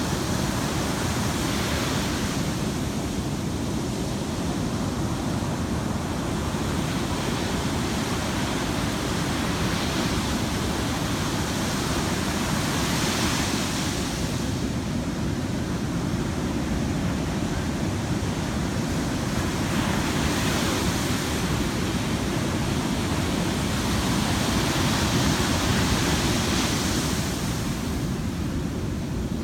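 Heavy surf: large waves breaking and washing in, a steady rush of noise with a deep rumble underneath and surges of brighter hiss every several seconds as waves break.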